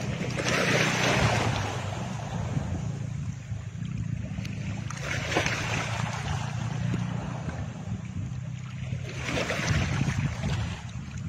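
Steady low droning hum under swelling whooshes of noise that rise and fall about every four to five seconds, much like surf, from the video's added background soundtrack.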